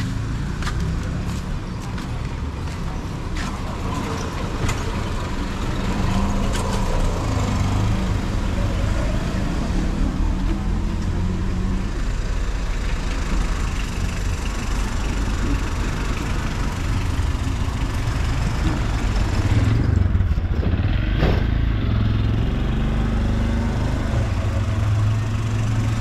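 Street traffic running past: a steady engine hum from cars and motorbikes, growing a little louder about twenty seconds in as a vehicle goes by.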